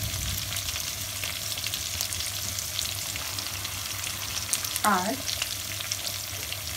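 Chopped onion, tomato and capsicum frying in hot oil in a pan: a steady sizzle with fine crackling.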